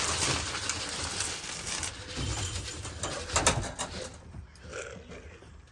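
Racing pigeons at their loft, cooing and moving about. A rustling noise runs through the first four seconds, with a few sharp clicks about three and a half seconds in.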